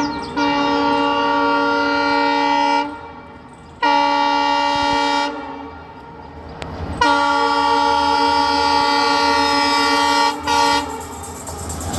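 Train horn sounding several chord-like blasts: a long blast, a shorter one, a long blast and a brief final toot, over a low rumble from the train.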